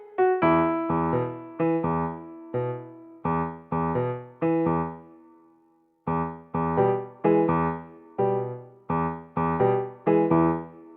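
Background music: a light keyboard tune of short struck chords, each dying away. It fades out about five seconds in and starts again about a second later.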